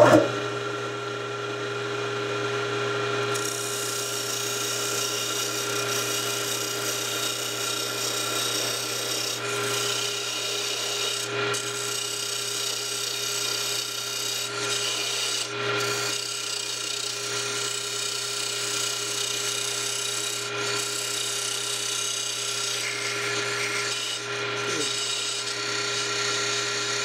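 A small lathe runs with a steady hum while, from about three seconds in, a hand-held parting tool cuts into the spinning wooden model wheel with a steady scraping hiss. The cut pauses briefly a few times as the wheel is parted off the stock.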